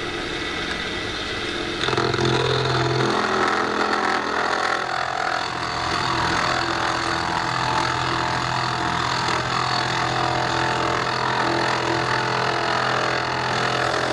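Small electric motor of a homemade desktop mini metal lathe running with a steady hum. It gets louder and busier about two seconds in, then holds steady.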